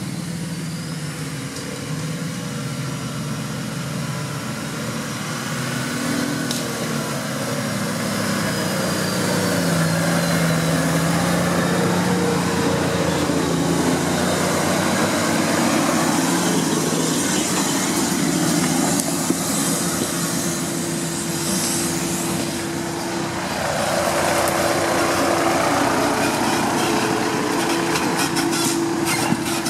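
Engine of a Suzuki Samurai off-road 4x4 working under load as it climbs a rough forest trail. The pitch shifts up and down with the throttle, and it grows louder as the vehicle comes close near the end.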